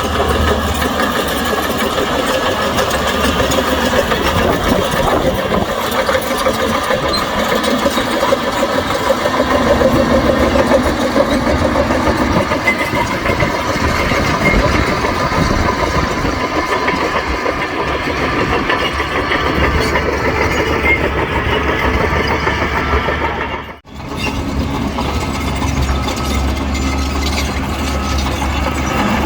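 Diesel engine of a Shantui bulldozer running steadily, with a brief dropout about 24 seconds in.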